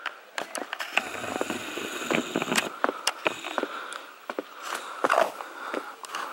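Footsteps in sneakers on a rocky dirt trail: irregular scuffs and knocks of shoes on stone and grit as someone walks downhill.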